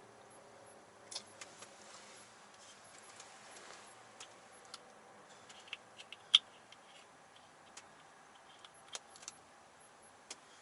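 Scattered small clicks and taps over quiet room tone, with one sharper click about six seconds in.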